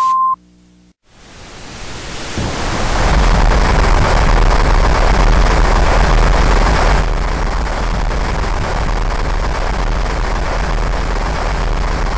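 A short beep, then a rocket engine firing: the noise swells over about two seconds and then holds steady and loud, heavy in the bass.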